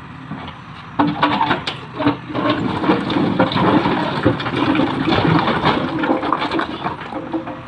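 Loose stones and rubble sliding out of a tipper truck's bed and clattering onto a growing rock pile as a backhoe bucket drags them out. The rush of rock starts suddenly about a second in and keeps going.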